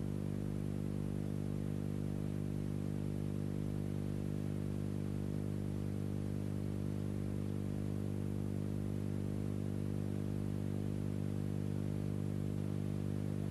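A steady low electrical hum with evenly spaced overtones, unchanging throughout: mains hum on an old film soundtrack that carries no live sound.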